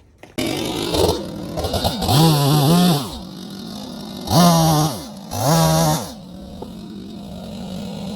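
Holzforma G255 45.4cc two-stroke chainsaw running, revved up three times for about a second each and dropping back to idle between and after the revs.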